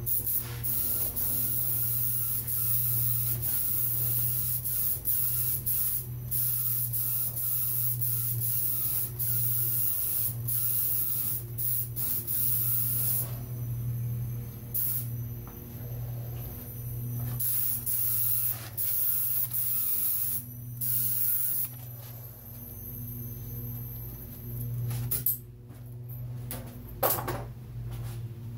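Compressed-air touch-up spray gun hissing in repeated bursts as the trigger is pulled and released, laying on heavier coats of candy paint. A steady low hum runs underneath, and a couple of sharp knocks come near the end.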